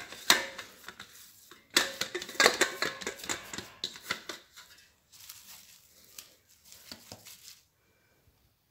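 Kitchen utensil noise: a metal spoon clinking and scraping in a small saucepan, in clusters of quick clicks that thin out and stop about a second before the end.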